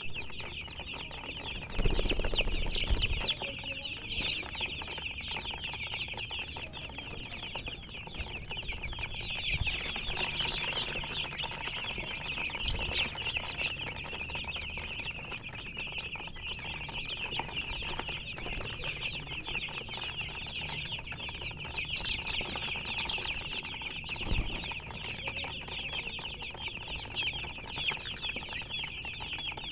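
Many chicks chirping continuously, a dense overlapping chatter of short high peeps throughout, with a brief louder low bump and rustle about two seconds in.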